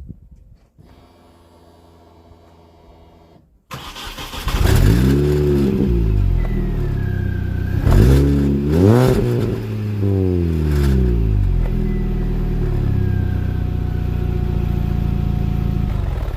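BMW Mini R53's engine heard through its exhaust: it comes in suddenly and loudly about four seconds in and is revved up and down a few times, then settles to a steady idle.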